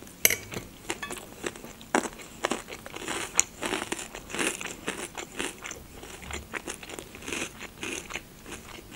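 Close-up chewing of a mouthful of scrambled eggs with crunchy bacon-flavoured rusks: a run of irregular crunches.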